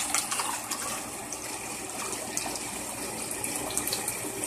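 Water pouring through a funnel into a central AC condensate pump's reservoir, over the steady hum of the pump motor. The pump runs all the time even without water, which the owner puts down to a float that needs cleaning or a pump that needs replacing.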